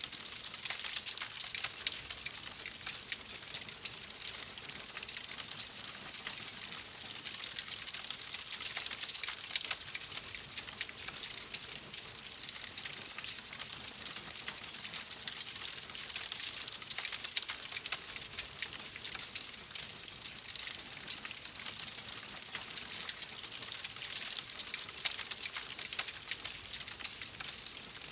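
Steady rain mixed with a crackling wood fire: an even hiss dotted with many small, sharp crackles.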